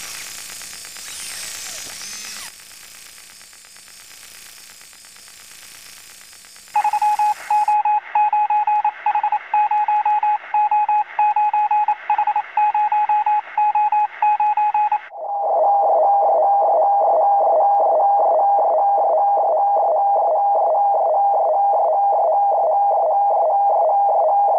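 Radio transmission sound effects: a few seconds of static hiss, then a single tone keyed on and off in short and long beeps, then from about halfway a steady tone that pulses about twice a second, like a telemetry signal.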